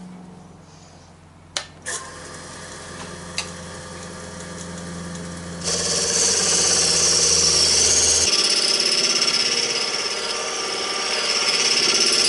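Wood lathe running with a steady low hum and a couple of sharp knocks about a second and a half in; then, about halfway through, a turning tool bites into the spinning wood, a loud rough scraping cut that continues to the end.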